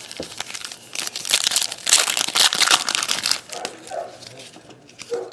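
Foil trading-card pack wrapper crinkling loudly as it is torn open, for about two and a half seconds, then lighter rustling and handling of the cards.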